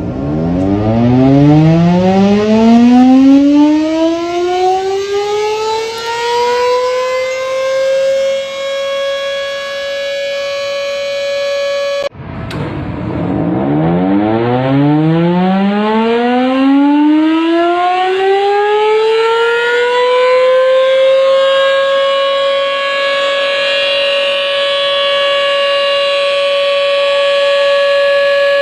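Iftar siren signalling the time to break the Ramadan fast: its wail rises steadily in pitch over about eight seconds, then holds one steady tone. About twelve seconds in it cuts off abruptly and starts again from low, rising to the same held tone.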